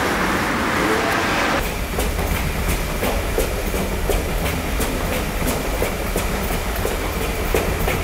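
Train running on rails: a steady low rumble with repeated sharp clicks of the wheels over the rail joints. It cuts in abruptly about one and a half seconds in, replacing a brief stretch of hissing noise.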